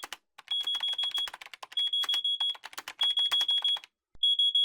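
Electronic pager alert beeping: trains of rapid high-pitched beeps at one steady pitch, about four trains each lasting under a second, over a clatter of clicks that drops away for the last train.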